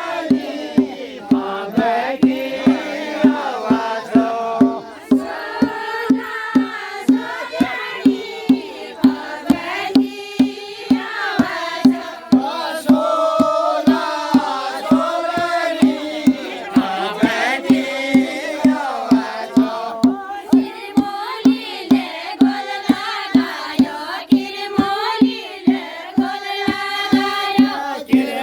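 Pahari chanchari folk song: a group of voices singing over a steady drum beat, about two strokes a second.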